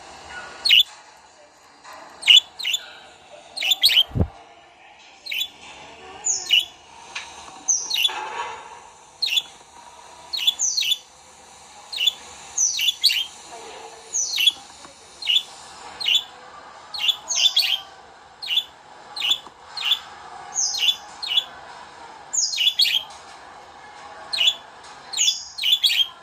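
Cheetah cub chirps: short, high-pitched calls that fall sharply in pitch, repeated irregularly about once or twice a second, mixed with the excited calls of a pet budgerigar.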